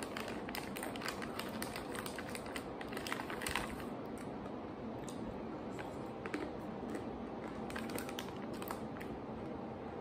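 Close-up crunching of imo kenpi, hard candied sweet-potato sticks, being chewed: a quick run of crisp crunches through the first four seconds, then fewer, scattered ones.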